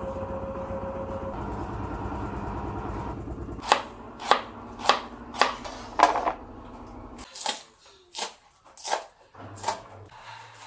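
LG front-loading washing machine running with a steady hum, then a kitchen knife chopping vegetables on a plastic cutting board: five even chops about half a second apart, and a few more after a short pause.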